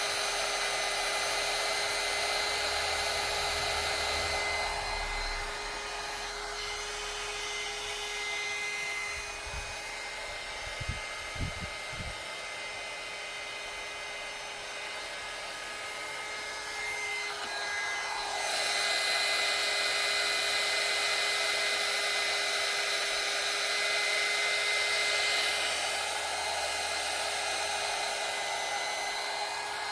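Heat gun blowing steadily, shrinking heat-shrink tubing onto a repaired turn signal stalk, with a steady whine under the rush of air. It grows quieter about five seconds in and louder again about eighteen seconds in, with a few low thumps near the middle.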